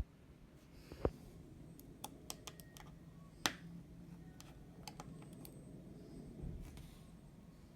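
Small, irregular clicks and taps of a screwdriver working on the screws and metal parts of an opened iPhone, the sharpest about a second in and about three and a half seconds in.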